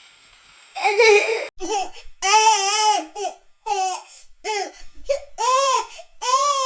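Baby sobbing: a breathy gasp about a second in, then a run of about six short, catching cries, the later ones rising and falling in pitch.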